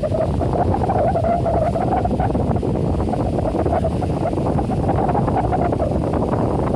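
Ocean surf breaking on a sandy beach, with wind rumbling on the phone's microphone and a wavering hum above the rumble.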